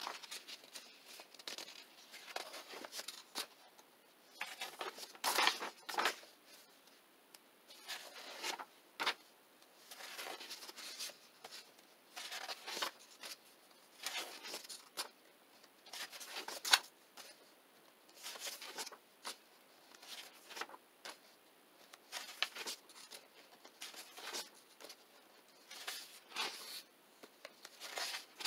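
Pages of a paperback coloring book being turned by hand, one after another. The paper rustles and swishes in short bursts every second or two, with a few sharper flicks as a page lands.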